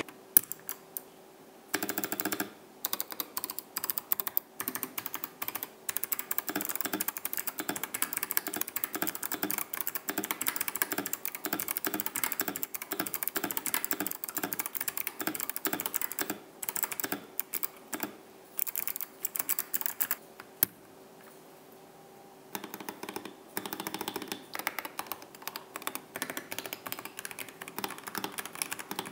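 Typing on an FL-Esports CMK87 mechanical keyboard with Kailh Box switches: rapid, continuous keystroke clacks. It starts after a short pause and stops for about two seconds past the middle, with a single sharp click, before typing resumes.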